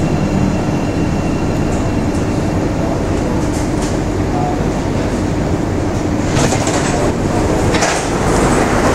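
Metro train heard from inside the car as it slows into a station: steady running noise with a motor hum that fades out in the first couple of seconds, then several short hisses near the end.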